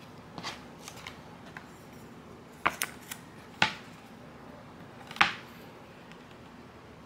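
Small pointed snips cutting self-adhesive vinyl sticker: a scatter of short, sharp snips and clicks, with three louder snips in the middle and latter part.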